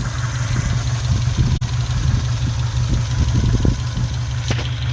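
Subaru Outback's flat-four engine idling loud and steady through an exhaust with the muffler cut off.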